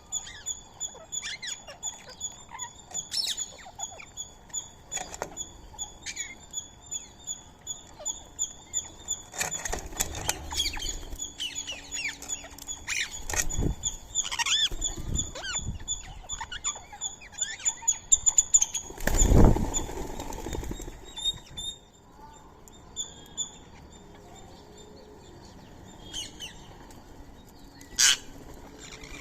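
Birds calling at a feeding spot: a high chirp repeated a few times a second, with other short chirps and calls over it. About two-thirds of the way through comes a brief, loud flutter of wings, and then the chirping stops.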